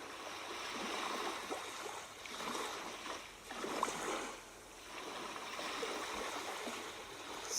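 Ocean waves washing and receding, the sound of the sea swelling and fading in loudness a few times.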